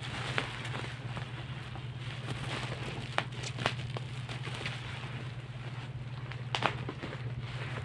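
Black bubble-wrap plastic packaging being handled and pulled open, rustling and crinkling with a few sharper crackles, over a steady low hum.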